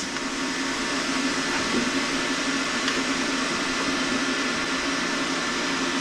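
A steady machine whir: an even hiss with a low, constant hum underneath, from a running fan or motor.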